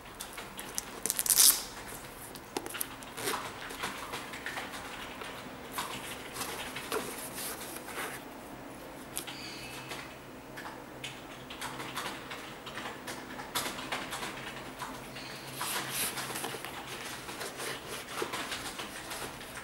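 Hands handling a black suede Adidas Yeezy Boost 750 high-top sneaker: irregular rustling, scuffing and small clicks of suede, laces and sole, with one louder rustle about a second in.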